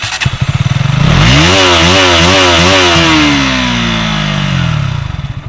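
KTM Duke 200's single-cylinder engine on its stock exhaust, with the air filter cover refitted, giving its stock sound: idling unevenly, then revved in about four quick blips and let fall slowly back to idle.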